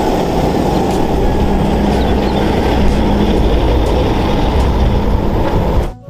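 A DAF CF diesel truck hauling a loaded car-transporter trailer driving past, with a steady low engine rumble and road noise. The sound cuts off suddenly near the end.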